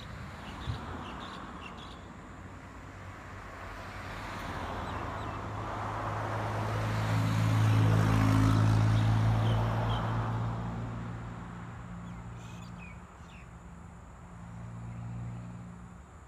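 A motor vehicle driving past, its engine growing louder to a peak about halfway through and then fading away, with a smaller engine hum passing near the end. Faint bird chirps sound now and then.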